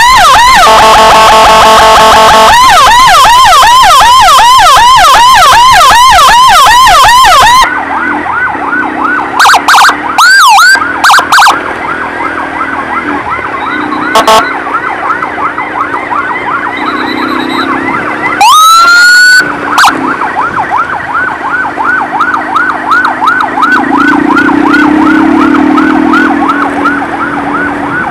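Emergency sirens. A fast yelping siren is very loud for the first seven or eight seconds, with a buzzy steady horn tone early on, then cuts off suddenly. A quieter yelping siren carries on, broken by a few short loud blips and, about two-thirds of the way through, one loud rising whoop.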